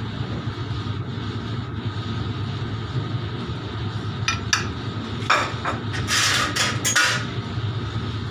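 Steady low machine hum of a kitchen, with a few sharp knocks a little past halfway and then a couple of seconds of clattering kitchenware.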